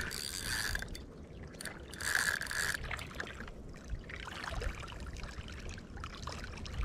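Spinning reel being cranked during a retrieve: a mechanical whirring and ticking of the reel's gears, with a steady whine that comes on in two stretches, near the start and about two seconds in.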